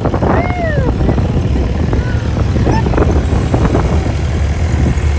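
Open jeep's engine running steadily while it drives, with people's voices calling out over it, among them a high cry that rises and falls about half a second in.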